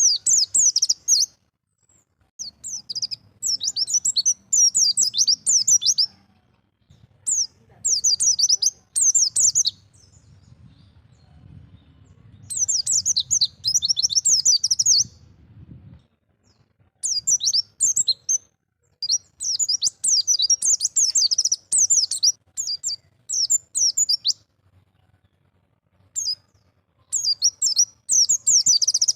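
Pleci (white-eye) singing the wild 'ngalas' style of song: bursts of rapid, high twittering one to three seconds long, separated by short pauses.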